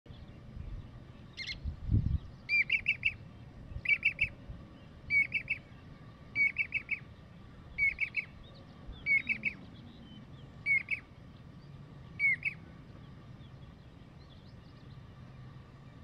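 Jacobin (pied) cuckoo calling: short groups of two to four quick, high, clear notes, repeated about every second and a half, ending a few seconds before the close. A brief low thump about two seconds in.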